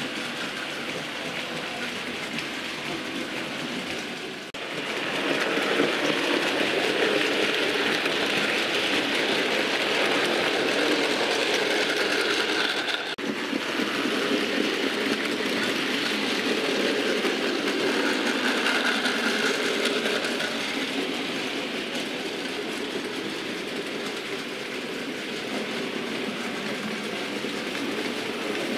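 DC model railway locomotives and wagons running on the track: a steady mechanical whir and rattle that gets louder about five seconds in as a train passes close.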